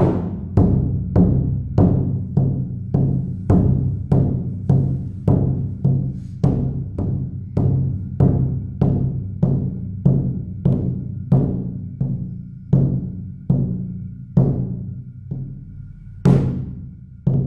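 Shamanic hand drum beaten in a steady, even pulse, a little under two strokes a second, each stroke ringing on low. Near the end the beat pauses briefly and comes back with a louder stroke.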